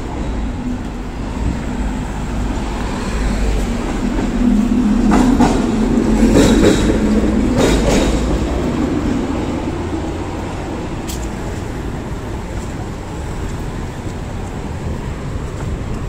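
Road traffic on the street beside the pavement: a steady rumble, with a heavy vehicle passing by that swells to its loudest about five to eight seconds in, then fades.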